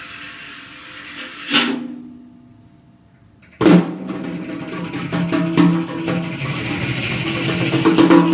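Improvised electric guitar and drum kit duo. After a quiet stretch with one brief swish, the drums come in suddenly about halfway through with rapid strokes and rolls over sustained low tones.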